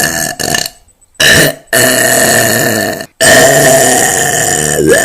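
A person burping loudly several times in a row: a short burp, then two long, drawn-out ones back to back.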